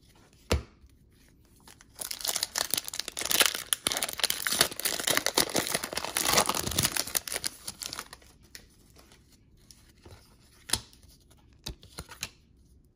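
A trading-card pack wrapper torn open and crinkled for about five seconds, starting about two seconds in, with a few light sharp taps before and after.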